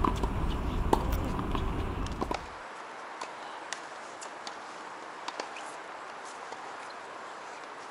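Outdoor tennis court ambience. For the first two seconds or so there is a low rumble with a few sharp clicks. It then drops abruptly to a quieter steady hiss with scattered faint taps of tennis balls bouncing and being struck.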